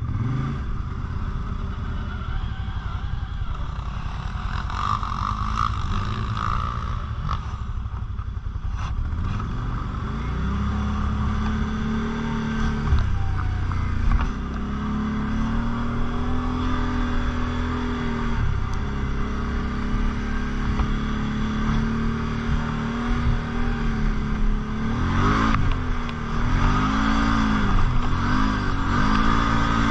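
Quad bike engine running under throttle as it is ridden, its pitch rising and holding from about ten seconds in, then surging up and down quickly near the end.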